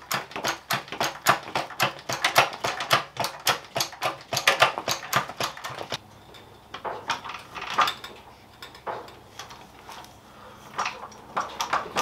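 Hydraulic floor jack being pumped to lift a truck's front axle toward full bump: a fast clatter of metallic clicks and clanks from the handle and pump for about six seconds, then sparser, quieter clicks.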